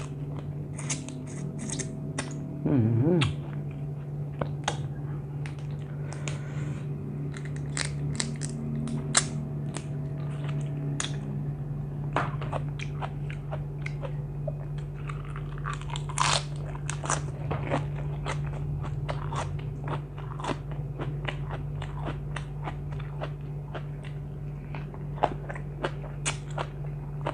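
A person eating close to the microphone: many sharp, irregular crunches from bites, with chewing between them, over a steady low hum.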